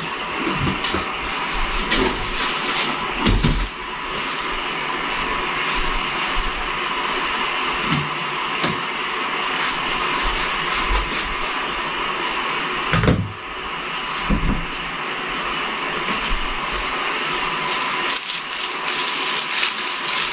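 A steady mechanical whir like a running motor or fan, with a few short knocks and some rustling on top.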